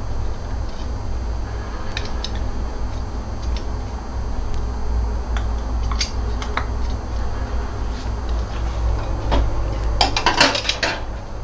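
Metal kitchen tongs clinking against a ceramic plate and bowl as pieces of fried tofu are moved onto the plate. A few scattered light clinks, then a quick cluster of clinks near the end, over a steady low hum.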